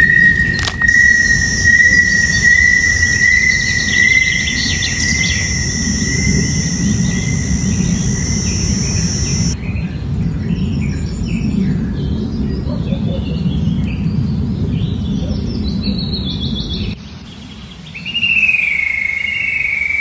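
Forest ambience with birds calling and chirping over a low rushing background. A long, steady high whistle carries through the first half; short chirps follow. The sound changes abruptly about halfway and again near the end, where a new high whistling call starts with a waver and then holds steady.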